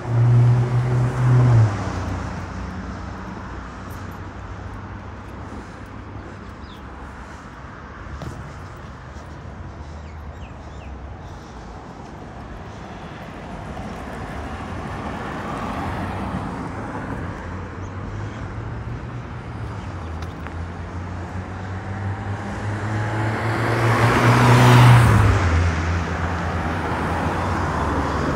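Road traffic with two motor vehicles passing. One goes by right at the start, its engine hum dropping in pitch as it passes. After a stretch of steady traffic noise, a second builds up, is loudest about 25 seconds in, and drops in pitch as it goes by.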